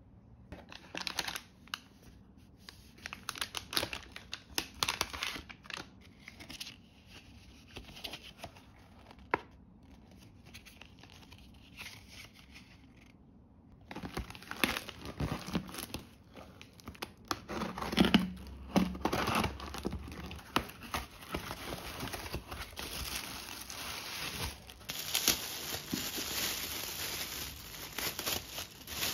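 Packaging handled by hand. First come scattered light rustles and taps, then, after a break about halfway, a cardboard shipping box being pulled and torn open. Near the end a plastic bag crinkles as it is unwrapped.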